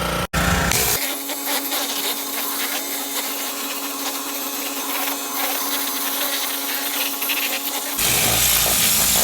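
Gas-engine pressure washer running with its turbo nozzle spraying against a wooden sign, a steady hissing blast. The sound cuts out for an instant just after the start.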